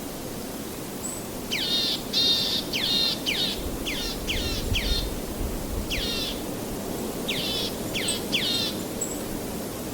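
A songbird calling a series of short, sharply falling chirps, about a dozen in quick runs with brief pauses between them, over a steady rushing noise.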